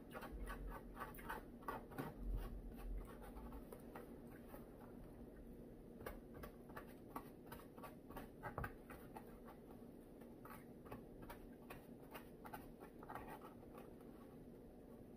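A fork scraping and tapping in a takeout food container: irregular light clicks and scrapes that thin out near the end, over a faint steady room hum.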